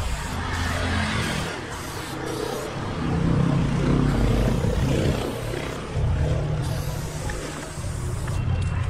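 Aerosol spray paint can hissing in short on-and-off bursts as paint is sprayed onto a wall, over a steady low rumble.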